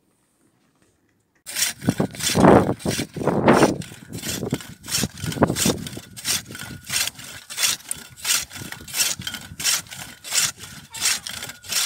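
Hand ice auger boring through lake ice: a rhythmic grinding scrape with each turn of the blades, about two to three strokes a second, starting about a second and a half in.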